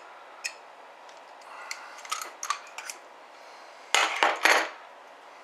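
Small steel C-clamp and brass 12-gauge shotgun shell being worked by hand as a primer is pressed into the shell. A few light metallic clicks and scrapes come first, then a louder, brief clatter of metal about four seconds in as the clamp and shell are handled.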